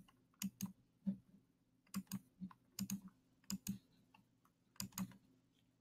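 Computer mouse clicks, mostly in quick pairs of press and release, about a dozen in all at an uneven pace, as bars of an on-screen xylophone are clicked one by one to play a melody; the xylophone's own notes are not heard.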